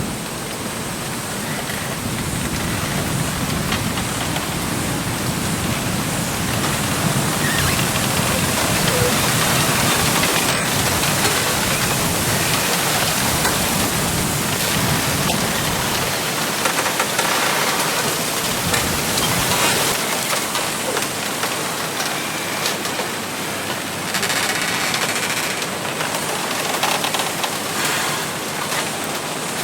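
Wind gusting through a bamboo grove, a steady rush of rustling leaves with the stalks rubbing against each other. It swells about a third of the way in and eases off after.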